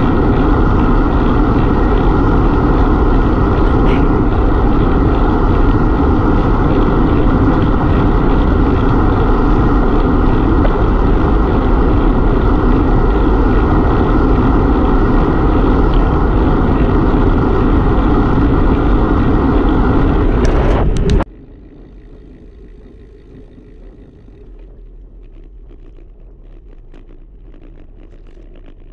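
Wind rushing over the microphone of a bike-mounted action camera on a road bike at speed, a loud steady rush mixed with tyre noise on asphalt. About 21 seconds in it cuts off abruptly to a much quieter rush of wind and road noise with a few faint ticks.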